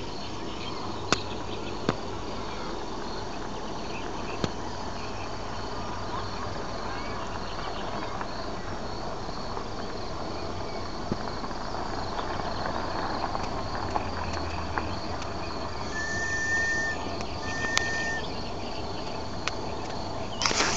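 Crickets chirping steadily, with a few sharp clicks early on. Near the end come two short, steady, whistle-like notes.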